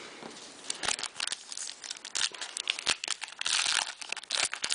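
Trading-card pack wrapper crinkling and being torn, with many quick clicks and crackles from handling the packs and cards. There is one longer, denser rustle about three and a half seconds in.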